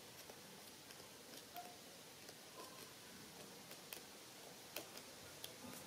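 Near silence with a few faint, scattered ticks: a small metal tool clicking against a spinning reel's pinion gear and shaft as a washer is pressed down onto the gear.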